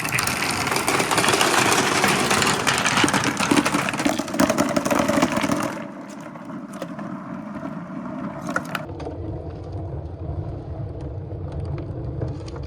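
A batch of small billiard balls released at once, clattering and rolling down a wooden marble run in a dense stream of clicks for about six seconds, then settling into a steady low rolling rumble as they circle the orange circular slope.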